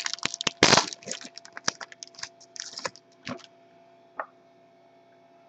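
Trading cards being handled and flipped through by hand: a quick run of crisp card-stock clicks and rustles that stops about three and a half seconds in.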